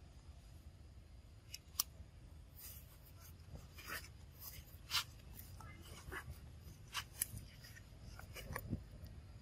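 Scattered light clicks and crackles of small movements over rock and leaf litter, a few seconds apart, over a low steady rumble.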